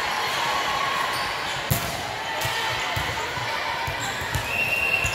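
Volleyballs bouncing on a hardwood gym floor, irregular thuds over a background of voices, with one sharper smack about a second and a half in.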